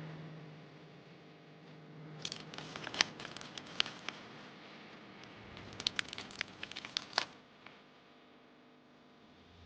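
Doll packaging being opened by hand: crinkling, crackling and tearing in two bursts of sharp clicks and rustles, about two seconds in and again past the middle.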